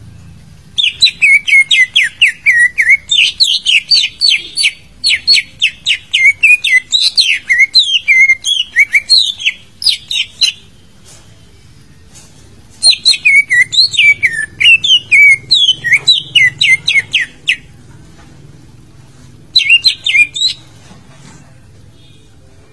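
Cucak ijo (green leafbird) singing in three bouts of rapid, varied whistled notes: a long phrase, a shorter one, then a brief burst. This is song of the kind played to spur a silent captive cucak ijo into answering.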